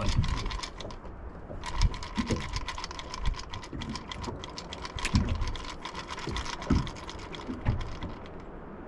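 Rapid, dense mechanical clicking with a faint steady tone under it, stopping briefly about a second in, and a few low thumps.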